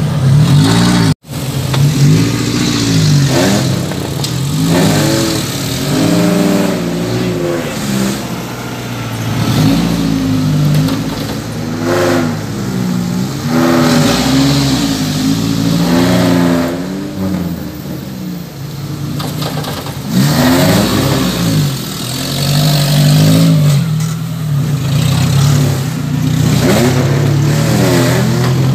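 Off-road 4x4 engine revving up and down over and over, its pitch rising and falling with each burst of throttle. There is a brief break in the sound about a second in.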